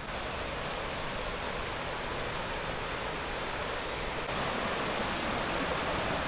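Shallow rocky river rushing over stones and boulders: a steady rush of running water that grows a little louder about two-thirds of the way through.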